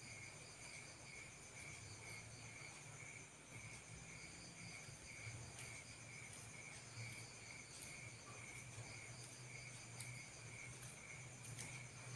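Night insects chirping faintly and steadily in several high, pulsing trills, over a faint low hum.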